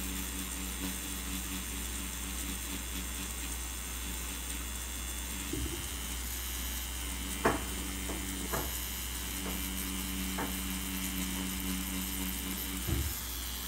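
Cartridge tattoo machine running with a steady hum and hiss as the needle lines black ink into synthetic practice skin. The hum breaks off briefly a couple of times, a few sharp clicks sound in the middle, and a knock comes near the end.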